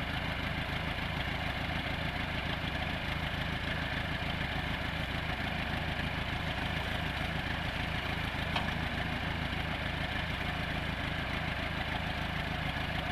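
Diesel farm tractor engine running steadily at low revs as it tows a boat through shallow water. A single sharp click about two-thirds of the way through.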